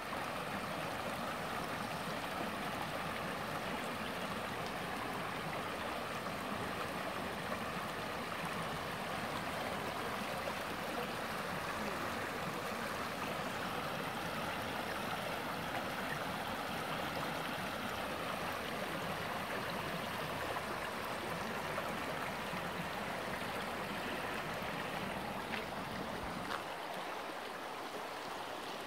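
Shallow mountain brook trickling and gurgling over stones, a steady rush of running water that grows slightly fainter near the end.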